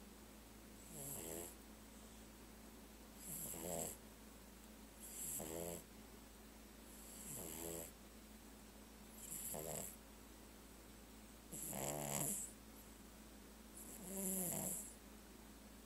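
Pug puppy snoring steadily, a snore about every two seconds, seven in all, each a short pitched rasp with a hissy edge. The flat-faced breed is prone to this noisy sleep breathing.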